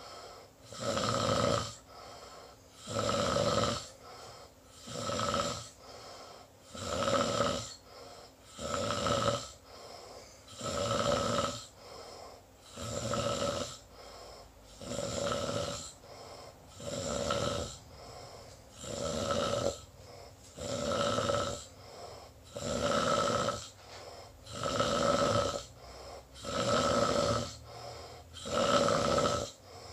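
Snoring: a steady rhythm of loud snores, one about every two seconds, each followed by a softer breath.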